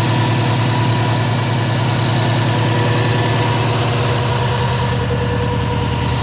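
2002 Subaru WRX's turbocharged 2.0-litre flat-four idling steadily with the hood open: an even, low pulsing rumble.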